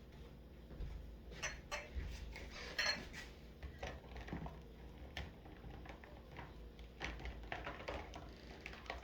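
Dishes and cups clinking and knocking against each other at irregular moments as they are hand-washed and dried, the sharpest clink a little under three seconds in.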